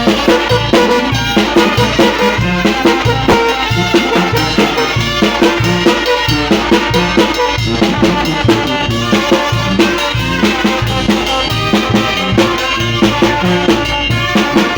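A brass band with drums playing lively, danceable music: horns over a steady, quick drum beat.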